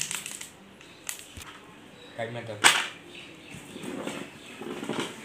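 Packaging being handled: two sharp slaps, one about a second in and a louder one near the middle, amid brief talk.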